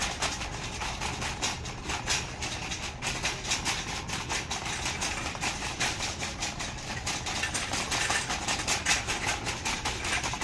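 Wire shopping cart rolling over a tiled floor: a steady rumble with a rattle of many quick clicks from the wheels and basket.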